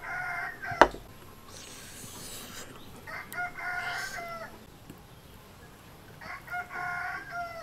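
A rooster crowing three times, about three seconds apart, each crow lasting about a second. A single sharp knock, the loudest sound, comes just under a second in.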